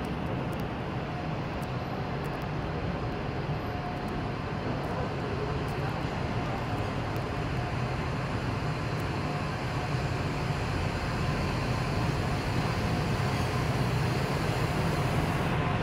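PESA 620M diesel railcar pulling into the station: a steady engine hum with wheel and rail noise, growing gradually louder as it approaches.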